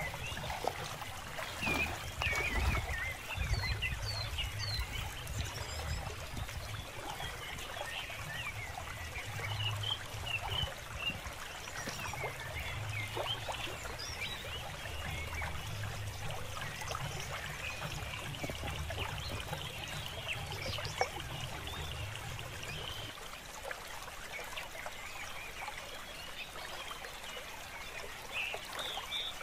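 Pond water sloshing and trickling around a person wading through it, with many short high chirps in the background and a low rumble that stops about two-thirds of the way through.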